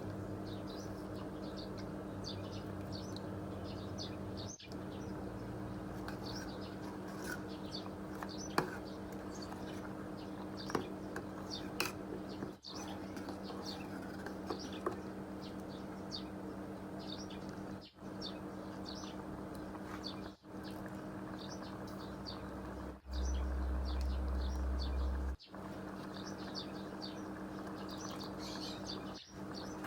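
Small birds chirping over a steady background hum, with a few sharp clicks and a louder low rumble lasting about two seconds about three quarters of the way through.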